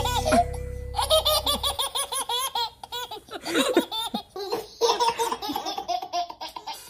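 Babies laughing in quick runs of repeated high giggles and belly laughs.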